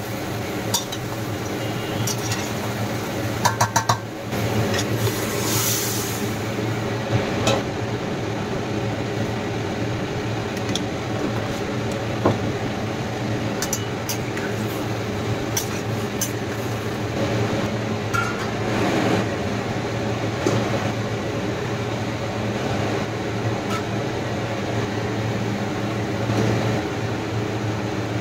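Steel spatula clinking and scraping against a stainless steel pot of bottle gourd, with a quick run of four sharp clinks about four seconds in. A steady low hum runs underneath.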